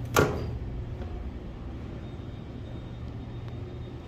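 Elevator hall call button pressed, giving a single sharp click near the start, over a steady low background hum.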